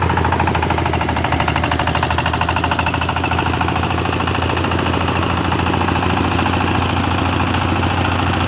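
Motorised rice thresher running steadily, its engine and threshing drum making a loud, even hum with a fast pulsing beat.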